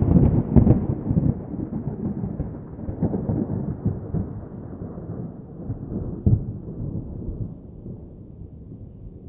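Thunder: sharp cracks in the first second give way to a low rolling rumble that fades over several seconds, with one smaller crack about six seconds in.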